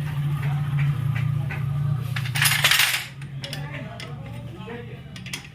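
Small metal parts and tools clinking and clicking during work on a motorcycle drum brake, over a low steady hum that fades out about three seconds in; a loud, short hissing burst comes just before the hum fades.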